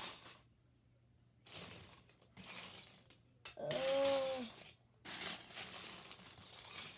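Loose plastic Lego bricks clattering and rattling in several bursts as a pile is rummaged through by hand, with a brief hummed vocal note about four seconds in.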